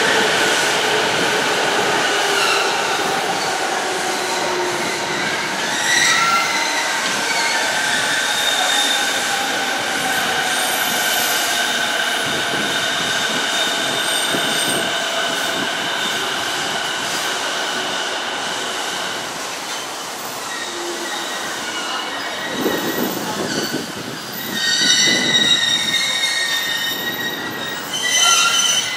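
Yokosuka Line E217-series electric train braking into the station: steady high wheel and brake squeal over a slowly falling motor whine, which fades as the train stops about two-thirds of the way through. Rougher train noise with short high tones follows near the end.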